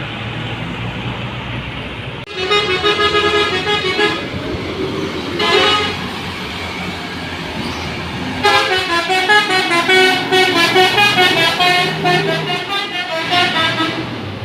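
A bus's telolet horn, a set of musical air horns, playing tunes of several stepping notes: a short phrase starting about two seconds in, a brief toot near the sixth second, then a longer melody from about eight seconds until just before the end, over the bus's engine running.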